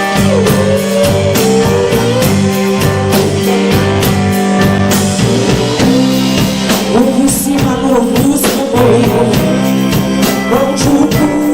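Live rock band playing, with a bending lead line over steady bass and drums.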